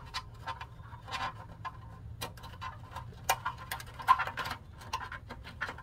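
Irregular light clicks, taps and scrapes, roughly two or three a second, from hand and tool work on the RV slide room's metal mechanism as the nylon bearing pads are worked into line. A low steady hum runs underneath.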